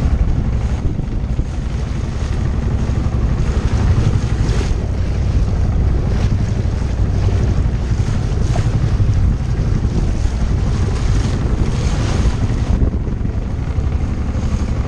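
Wind buffeting the microphone with a heavy, constant rumble, over water rushing and splashing against a small sailboat's hull as it sails, with a rush of spray every second or so.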